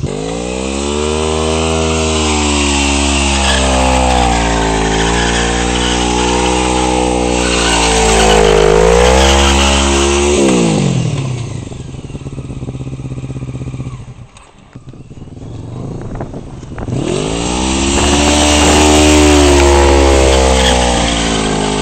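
Motorcycle engine held at high revs for a burnout, its rear tyre spinning on the tarmac. About ten seconds in the revs fall away and the engine nearly drops out for a few seconds, then it climbs back to high revs and holds there.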